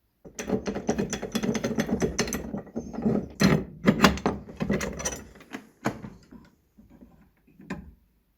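Wooden box pieces knocking and clattering as they are handled: a dense, irregular run of clicks and knocks for about five seconds, then a few scattered knocks.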